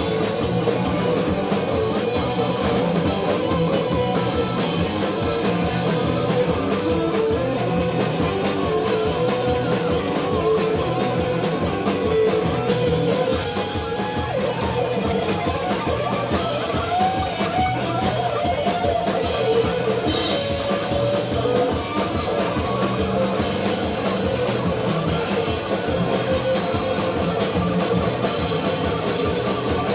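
Live space-rock band playing an instrumental break: electric guitars, bass and drum kit driving a steady beat, with a lead line that wavers and slides in pitch over the top.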